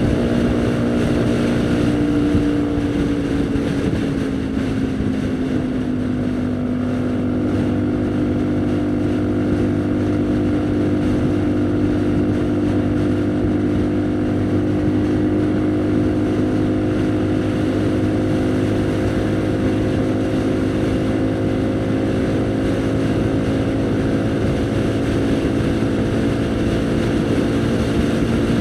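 Haojue NK150 motorcycle engine running under way, its pitch falling a few seconds in, then holding steady at cruise, with wind noise on the microphone.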